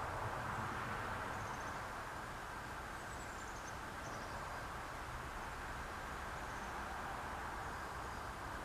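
Steady outdoor background noise with faint, high descending chirps a few times in the first half. No sound from the feeding skunk stands out.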